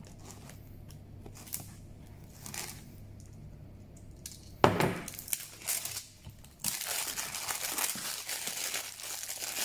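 Plastic shrink-wrap on a cardboard headphone box being slit with a knife, with a few faint scrapes. A sharp click about halfway through is the loudest sound. Then the film crinkles steadily as it is pulled off the box.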